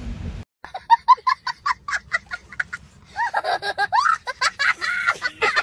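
A young boy laughing hard in rapid, high-pitched bursts. The laughter starts abruptly about half a second in.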